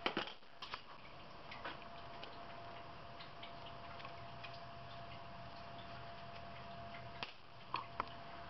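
Faint, scattered metallic clicks and ticks of a hex key and small port plugs being handled against an aluminium oil-burner preheater block. A few sharper clicks come near the start and again near the end.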